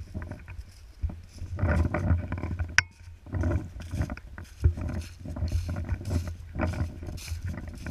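Footsteps hurrying through dry fallen leaves with loud rustling, over heavy breathing close to the microphone. A single sharp click with a short ring comes a little under three seconds in.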